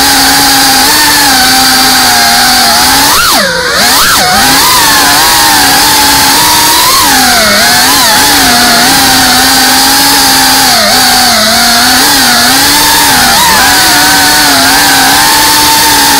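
FPV quadcopter's brushless motors and propellers whining under hard throttle, heard close from the onboard camera; the pitch wavers up and down with each throttle change. About three and a half seconds in the throttle briefly drops, and the whine sweeps down and back up.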